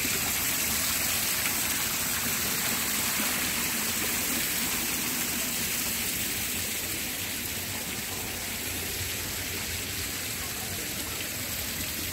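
Water pouring from the spouts of a decorative wall fountain, a steady rushing splash that drops a little in level during the second half.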